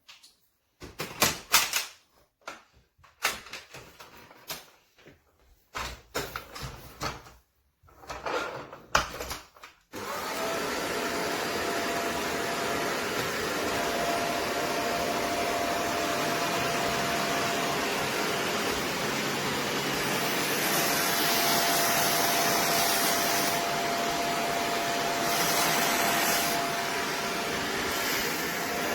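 Shark DuoClean upright vacuum cleaner: a run of knocks and clicks as it is handled, then it switches on about ten seconds in and runs steadily with a thin whine over its rushing suction. The hiss brightens twice in the second half.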